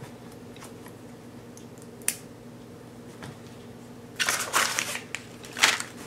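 Metal zipper pulls and a cable lock's shackle clicking and rattling as the lock's flexible cable is threaded through the pulls of a backpack. There is one sharp click about two seconds in, then bursts of jingling rattle near the end, the loudest just before the end, over a steady low hum.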